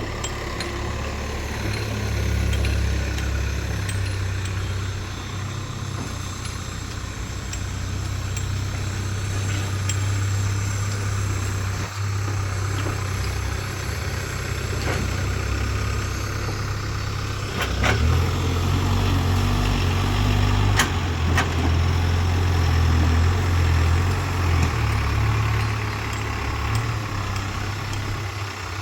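Heavy diesel engine of a JCB 3DX backhoe loader running steadily while loading mud, growing louder under load for several seconds from about 18 seconds in. A few sharp knocks sound around 18 and 21 seconds in.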